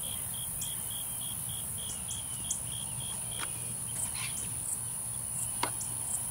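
Insects, crickets among them, calling in the evening grass: a steady high buzz with a regular chirping at about three pulses a second that stops about halfway through. A few short clicks and rustles come in over it.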